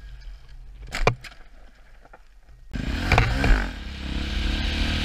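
Onboard helmet-camera sound of a KTM single-cylinder supermoto. First a low, quiet engine rumble with a sharp click about a second in. Then, after an abrupt cut nearly three seconds in, the engine is running steadily on the road with loud wind rush on the microphone.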